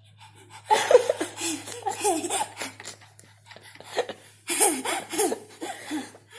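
Laughter in two bouts, starting about a second in and again near the end.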